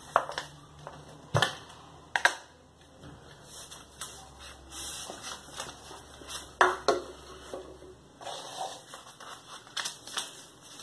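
Hands opening a cylindrical kit container and unpacking it: a few sharp clicks and knocks as the lid comes off and things are set down on a stone countertop, with soft rustling of paper and fabric between them.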